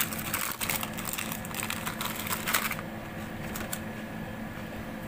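Baking paper crinkling and rustling as hands fold pastry edges over in a paper-lined glass baking dish: a run of quick crackles for the first three seconds or so, then quieter.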